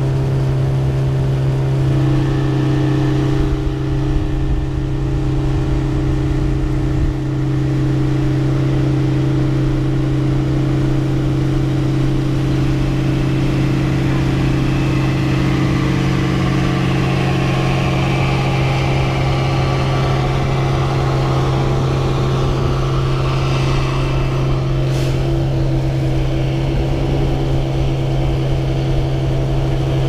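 Outboard motor pushing an inflatable boat at a steady cruising speed, a constant engine drone with the rush of water along the hull. A single brief thump about 25 seconds in.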